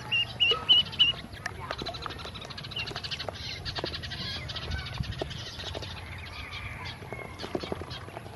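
Ducklings peeping, with a quick run of high peeps in the first second. Then comes a fast, dense clicking and pecking as their bills work at feed in a plastic basin and dabble in a small water bowl.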